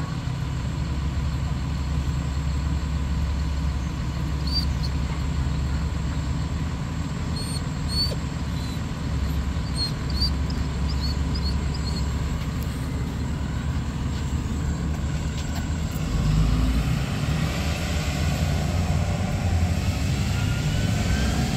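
School bus engine idling with a steady low rumble, then rising in pitch near the end as the bus pulls away. A few faint high squeaks come in the middle.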